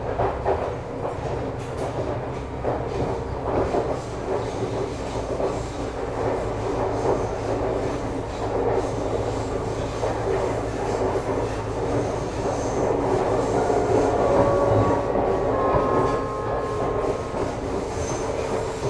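Nagano Electric Railway 2100 series (ex-JR 253 series) electric train running, heard from on board: a steady rumble with clickety-clack from the wheels. Near the end, several short steady whines at different pitches come from the train's traction equipment.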